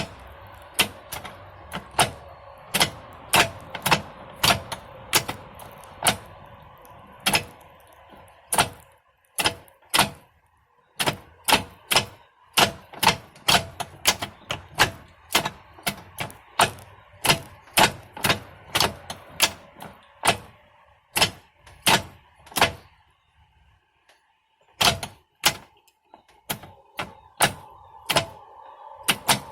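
Tremec TR3650 five-speed manual transmission being shifted by hand with a Pro 5.0 shifter through its gears and reverse: a run of sharp clicks and clunks, one or two a second, as the lever snaps into each gear, with a short pause about three-quarters of the way through.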